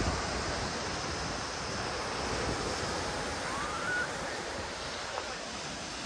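Sea waves washing onto a sandy beach: a steady rush of surf. About three and a half seconds in comes a short rising whistle.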